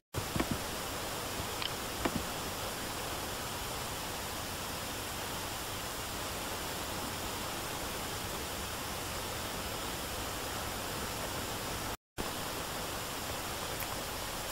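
Steady hiss of recording noise with no other sound. A few faint clicks fall in the first couple of seconds, and the hiss drops out for a split second twice, at the start and near the end, where the edit cuts between clips.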